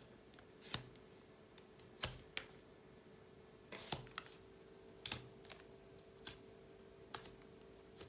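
Kitchen knife cutting the woody stem of a lemon cutting at an angle: a scattering of short, sharp, irregular clicks and snaps. A faint steady hum runs underneath.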